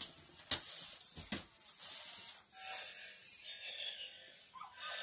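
Toy robot dogs' small servo motors whirring as they walk and move their plastic limbs, with two sharp plastic clacks about half a second and a second and a third in.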